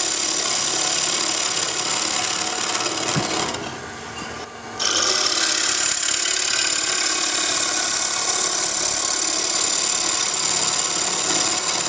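Bowl gouge taking a hollowing cut inside a wooden bowl spinning on a lathe: a steady hissing, rasping cut as the shavings peel off. The cut stops for about a second around four seconds in, then resumes.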